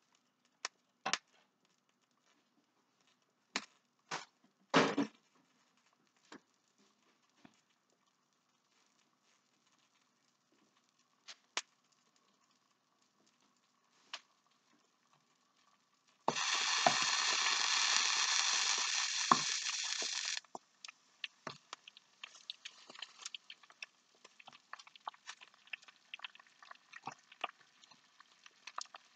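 Catfish fillet frying in a skillet. A few clicks and knocks of handling, then about halfway through a loud steady hiss for about four seconds that cuts off suddenly, followed by a fine, continuous crackle and pop of frying.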